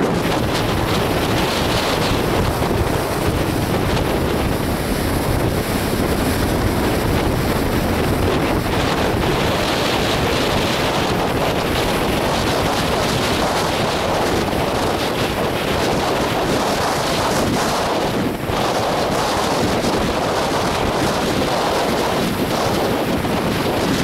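Strong gusty wind buffeting the microphone, loud and steady, over the wash of waves breaking in a rough, whitecapped sea.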